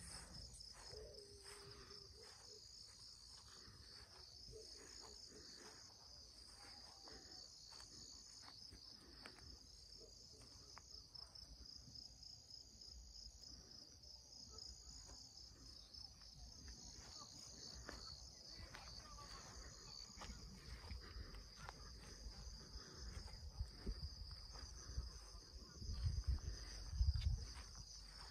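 Insects chirping steadily in a faint, high, pulsing chorus, with a few low thumps near the end.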